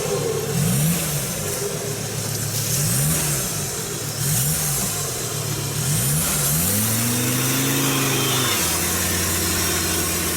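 Diesel vehicle engine revving up and down again and again in quick blips, then held at higher revs for about two seconds before dropping back to a steady idle near the end.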